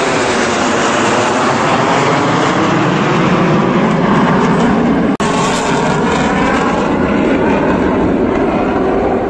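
Jet engines of a five-ship formation of Hawk jet trainers flying past overhead: a loud, steady roar whose tone slowly sweeps and shifts as they pass. The sound cuts out for an instant about five seconds in.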